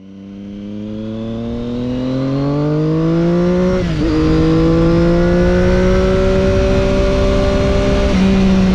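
Triumph Daytona 675's inline three-cylinder engine through an Arrow exhaust, accelerating under load with its pitch climbing steadily. The pitch dips briefly at an upshift about four seconds in, climbs again slowly, and there is a second shift near the end, with wind rumble underneath. The sound fades in over the first couple of seconds.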